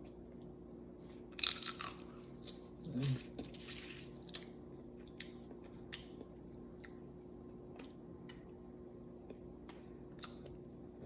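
Close-up mouth sounds of a person eating seafood picked apart by hand: wet chewing and lip smacks. A cluster of crunchy cracks comes about a second and a half in and again about three seconds in, then scattered soft smacks and clicks.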